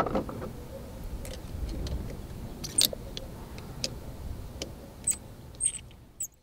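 Scattered short clicks and knocks of hands working the stock blow-off valve and its hoses off the intercooler piping of a Mitsubishi Lancer Evolution X, over a low background rumble.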